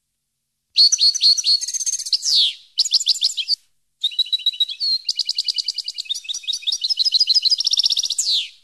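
European goldfinch singing: fast, twittering phrases of high chirps and rapid trills. A phrase starts just under a second in, a short one follows, and after a brief pause a long phrase runs from about four seconds in.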